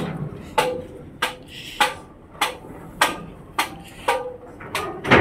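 Footsteps going down a metal staircase, a steady beat of just under two steps a second, each step a sharp clank with a short ring.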